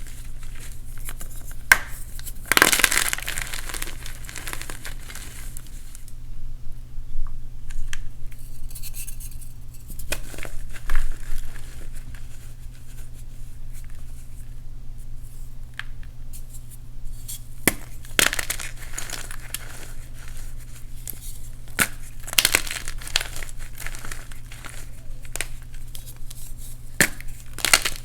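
Reformed gym chalk blocks being crushed by hand, crunching and crumbling in irregular spells, with louder crunches near the start, past the middle and near the end.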